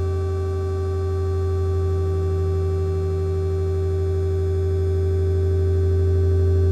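Steady electronic drone: a loud low hum with a stack of fixed higher tones above it, swelling slightly near the end.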